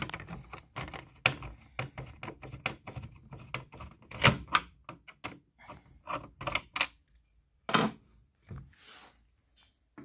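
Irregular sharp clicks and knocks of a screwdriver working the screws out of a hard plastic car centre console, with the plastic parts being handled. The loudest knocks come about four seconds in and again near eight seconds.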